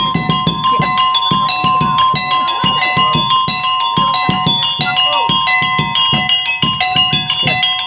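Live percussion accompaniment for a dancing-monkey street show: a hand drum beaten in a quick, even rhythm with small tuned metal gongs or keys struck over it, and a steady high ringing tone beneath.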